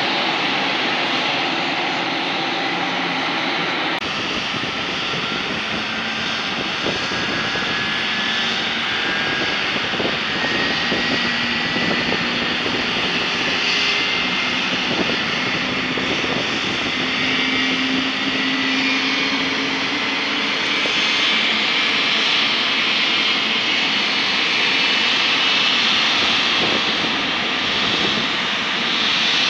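Embraer E190-E2's Pratt & Whitney PW1900G geared turbofans running at low taxi power as the jet taxies by. The sound is a steady rush with several whining tones that slowly rise and shift.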